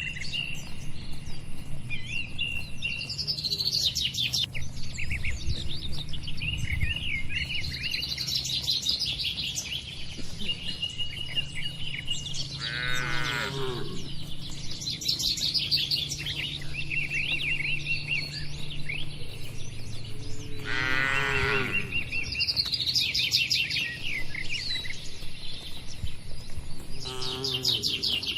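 Small birds chirping busily throughout, while cattle low in the shed: one drawn-out moo about halfway through, another about two-thirds through, and a third starting near the end.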